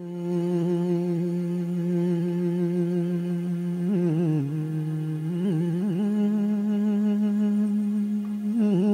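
Background music: a wordless humming voice holding long, low, steady notes, broken a few times by short wavering ornamented turns.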